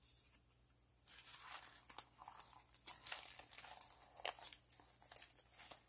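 Quiet paper and plastic rustling and crinkling with scattered small clicks, from cardstock cards and clear cellophane wrapping being handled, starting about a second in.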